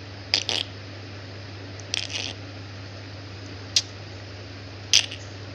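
Short wet clicking and smacking mouth sounds from a baby, four of them spread about a second or more apart, over a low steady hum.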